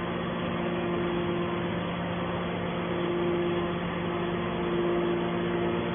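Hydraulic scrap baler's power unit running: a steady motor-and-pump hum, with a higher whine that fades and returns about halfway through.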